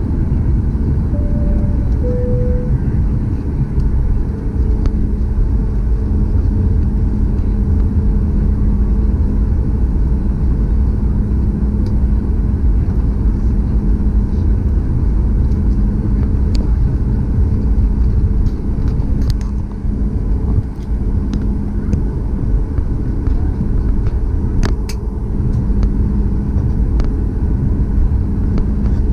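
Inside the cabin of a Boeing 737 MAX taxiing: a steady low rumble with a steady hum from the CFM LEAP-1B engines at taxi power. Two short tones, the second lower, sound about a second in, and a few light clicks come later.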